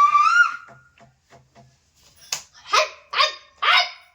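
Dog whining in a long rising cry, then barking three short times about half a second apart near the end.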